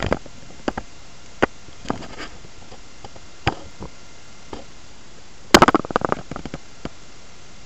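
Handling noise from a phone camera moved around a terrarium: scattered light clicks and taps, then a short burst of crackling rustle about five and a half seconds in, as the camera brushes the leaves of an artificial plant.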